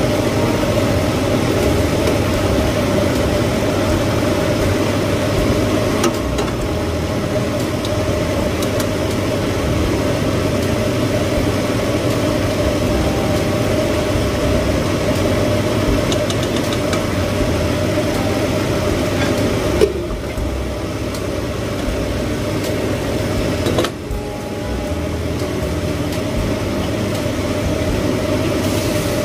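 Kitchen range hood fan running with a steady hum, with a few short knocks of cookware on the stove.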